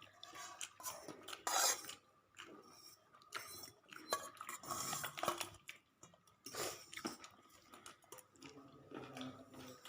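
Dishes and cutlery clinking and scraping irregularly while a person chews food, with a loud clatter about one and a half seconds in.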